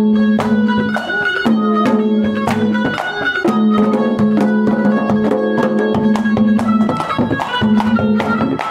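Instrumental interlude of Haryanvi ragni folk music: a melody instrument holds long notes, moving from note to note, over steady hand-drum beats.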